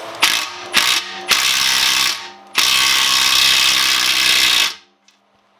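Small 1/4-inch impact gun hammering on a nut to draw a splined press-fit wheel stud into a Ford 9-inch axle housing. After a couple of clicks it runs in two bursts, a short one and then a longer, louder run of about two seconds that stops abruptly. The stud is drawing in slowly, making progress.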